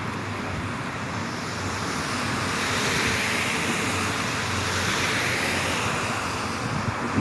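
Road traffic on wet pavement: a steady hiss of tyres on the wet road with a low rumble, swelling as a vehicle passes around the middle and fading again.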